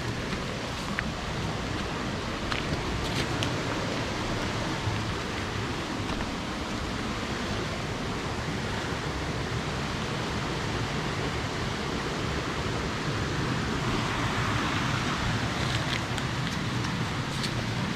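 Steady rushing of river water, growing a little louder near the end, with a few faint ticks over it.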